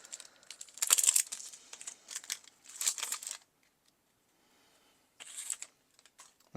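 The wrapper of a Magic: The Gathering play booster pack crinkling and tearing as it is opened. There is a run of rustling for about three and a half seconds, then a short crinkle near the end.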